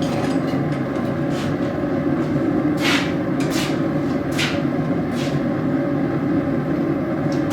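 Forge burner running with a steady rushing noise, with a few light clinks of metal.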